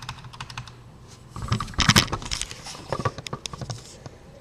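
Small metal lock parts, the pins and sliders of a gutted high-security lock, clicking and rattling as they are handled and moved about on a work surface, with a louder clatter about one and a half seconds in and a few more clicks near the end.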